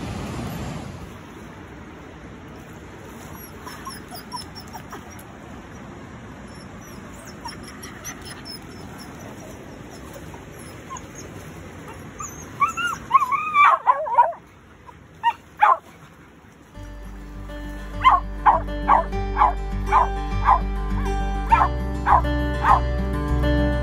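A Bedlington terrier–whippet cross dog whining in a few high cries that rise and fall, then giving a short bark a couple of seconds later. Steady low outdoor noise comes before the cries, and plucked ukulele background music starts about two-thirds of the way through.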